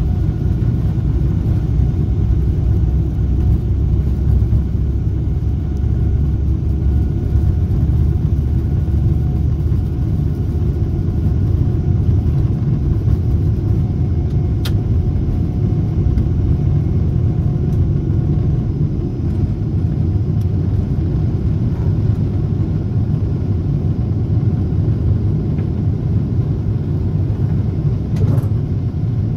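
Jet airliner engines at takeoff thrust: a steady, deep rumble with a faint steady whine above it, and a single short click about halfway through.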